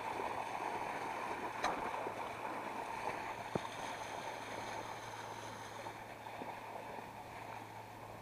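Motorboat under way: the engine runs with a steady low hum beneath the rush of water along the hull and wind on the microphone, easing a little toward the end. There are a couple of faint clicks.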